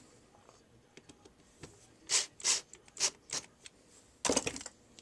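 Screwdriver driving screws into a hair clipper's plastic housing: a few short scratchy rasps about two seconds in, then a longer one near the end.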